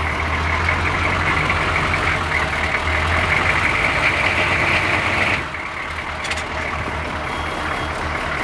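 Diesel Chevrolet Suburban engine running as the truck is backed up. The engine note builds until about five seconds in, then eases off to a steady low running sound, with a single click a second later.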